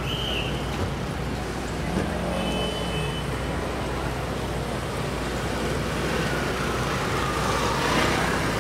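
Street traffic: motor scooters and a car driving past over a steady low rumble. The car's pass swells to the loudest point near the end.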